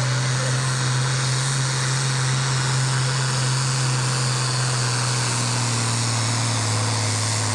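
Diesel engine of an International farm tractor running hard under load as it pulls a weight-transfer sled, a steady deep drone that holds one pitch throughout.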